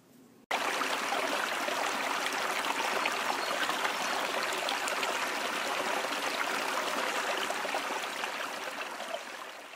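A small stream babbling and trickling steadily. It starts abruptly about half a second in and fades out near the end.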